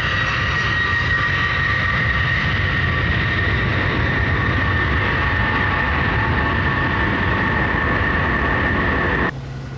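Lockheed C-5 Galaxy's four turbofan jet engines at takeoff power, a loud steady rush with a high whine over it, as the transport rolls down the runway and lifts off. It cuts off suddenly near the end.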